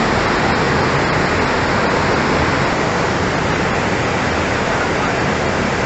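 Muddy flash-flood torrent rushing through a ravine: a loud, steady rush of churning water with no breaks.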